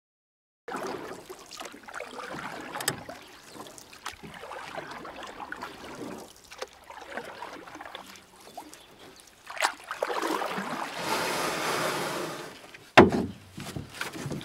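Canoe paddling: paddles pulling through lake water with splashing and dripping, and a few sharp knocks, the loudest near the end.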